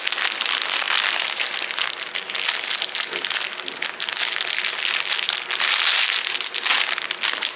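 Packaging crinkling and rustling continuously as items are pulled from a gift bag and unwrapped by hand.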